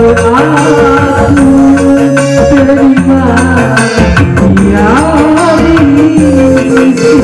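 Loud music with a singing voice over heavy bass, played through a parade sound system.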